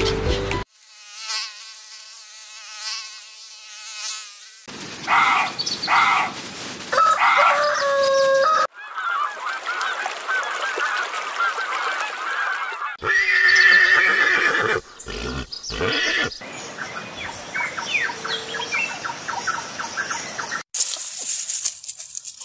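Geese honking and gulls calling in a string of short clips that cut abruptly from one to the next.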